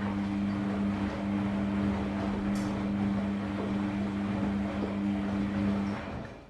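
Samsung WF-R1062 front-loading washing machine running its drum: a steady motor hum over the churning of the turning load, stopping about six seconds in.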